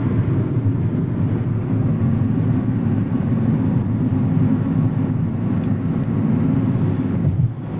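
Steady road and engine noise heard from inside a moving car, with a brief drop in level near the end.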